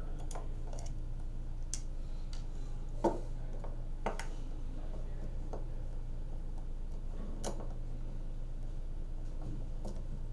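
Small, irregular clicks and taps of a hand-held hex key working the small screws in a plastic tool housing as the back plate is unscrewed, one sharper click about three seconds in, over a steady low hum.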